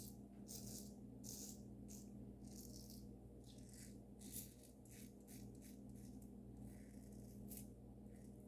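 Safety razor with a Lithe head and Dorco blade scraping through lathered stubble against the grain. It goes as a quick series of short, faint strokes, about two a second.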